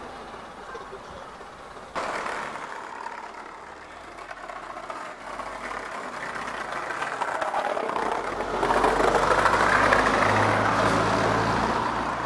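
Green Routemaster double-decker bus approaching and passing close by, its diesel engine and road noise growing louder and loudest near the end.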